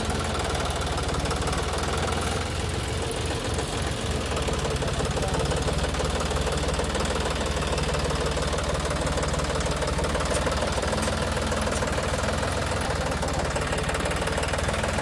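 John Deere 5050 E tractor's three-cylinder diesel engine running at a steady speed.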